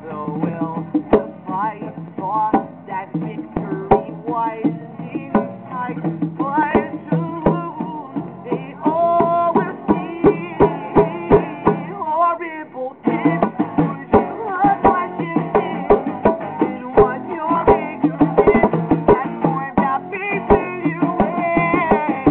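Acoustic band playing a song live: acoustic guitar with regular percussion hits, briefly thinning out about halfway through before coming back in full.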